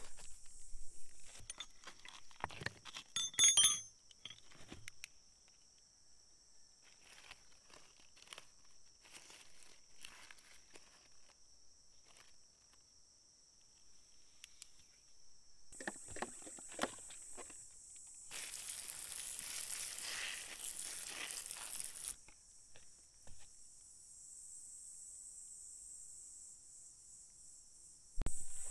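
Hands rustling through dry leaf litter and clicking small stones together on a forest floor, with a denser rustle for a few seconds past the middle. Behind it a steady high insect drone, which drops out for a stretch in the middle.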